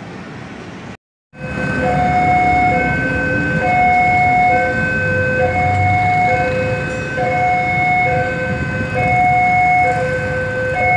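Railway level-crossing warning alarm sounding a steady two-tone hi-lo signal, switching pitch about once a second, warning that a train is approaching. Road traffic runs underneath it.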